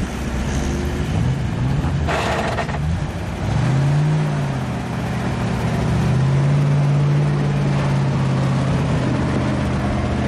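GAZ-66 army truck's V8 petrol engine under load as the truck crawls forward through snow. The revs rise and fall, then hold steady and climb again near the end. A short hiss comes about two seconds in.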